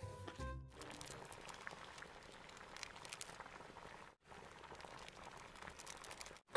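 Water at a rolling boil in a large wide pan, a faint steady bubbling, with a brief break about four seconds in.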